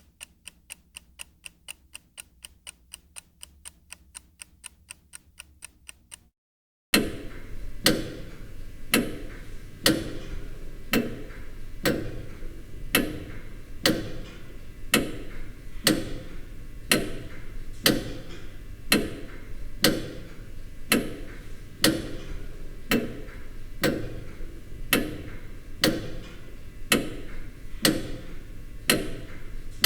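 Clock ticking: fast, light ticks about four a second stop about six seconds in. After a brief silence, a second clock ticks louder at about one tick a second over a low background hum and hiss.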